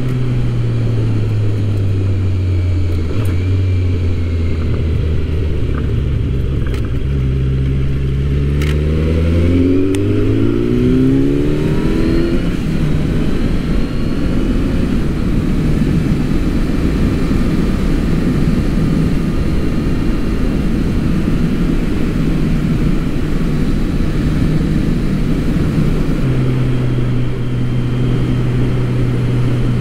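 Motorcycle engine heard from the rider's seat: its note falls as the bike slows over the first several seconds, then climbs as it accelerates hard about ten seconds in. After that, wind noise at speed mostly covers the engine until a steady engine note returns near the end.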